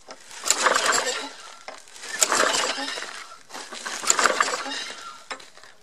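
Briggs & Stratton lawn mower engine being pull-started cold after having been seized: three pulls of the recoil starter cord, about two seconds apart, each a sharp rasping whirr that fades away, and the engine does not catch.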